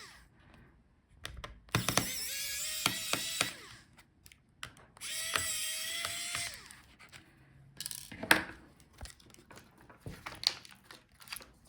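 Electric screwdriver backing out the laptop battery's screws in two runs of about a second and a half each, its motor whining at a steady pitch that rises slightly near the end of each run. Small sharp clicks and taps follow in the second half.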